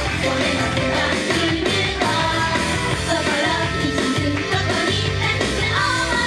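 Upbeat rock-style J-pop idol song performed live, with a group of young women singing over a loud backing track.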